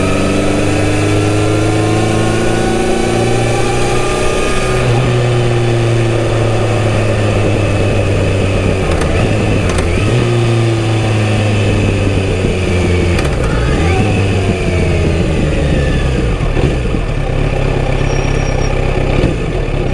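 Kawasaki Z900RS inline-four engine and exhaust on the move, the engine note rising and falling with the throttle and sinking lower over the last few seconds as the bike slows. Wind noise runs underneath.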